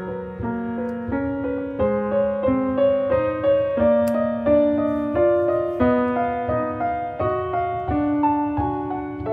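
Background piano waltz, one note after another at a steady pace over lower accompanying notes.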